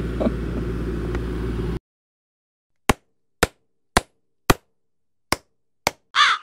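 A steady low rumble cuts off abruptly, followed by silence. Then come six sharp clicks roughly half a second apart and two short warbling sounds near the end.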